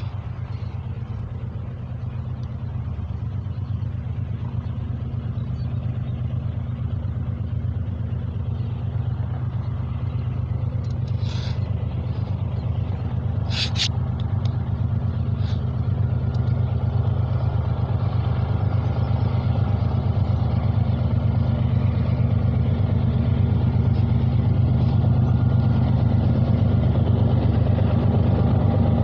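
Diesel locomotives of a BNSF coal train approaching, a steady low engine drone that grows gradually louder. A short sharp tick about halfway through.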